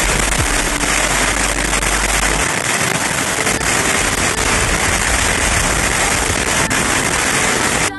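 High-pressure water jet from a hose washing down the steel bulkheads of a ship's cargo hold in a fresh-water rinse: a loud, steady hiss. A low rumble under it fades out about two and a half seconds in, and the hiss cuts off suddenly near the end.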